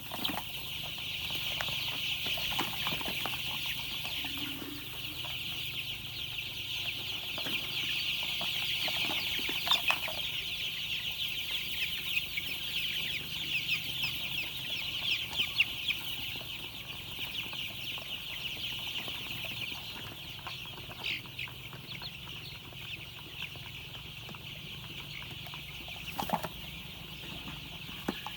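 A crowd of young chicks peeping continuously in a dense, high-pitched chorus, with a few short taps or knocks now and then.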